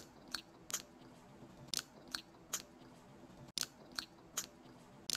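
A dog chewing crunchy food, with a crisp crunch about every half second and one short pause about a second in.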